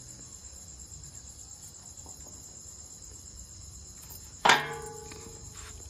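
Crickets chirping steadily in a high, continuous trill. About four and a half seconds in there is a single loud, sharp sound that rings on briefly.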